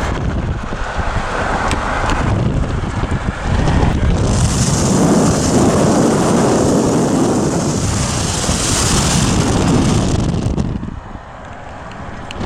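Road and wind noise of a moving car. It grows louder and hissier for several seconds in the middle, then drops off near the end.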